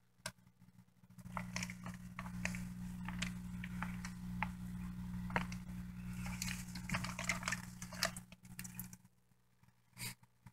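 Wet plastic shipping bag crinkling, with small splashes of water, as a hand nets tilapia fingerlings out of it; the crinkling is irregular and stops about nine seconds in. A steady low hum runs underneath.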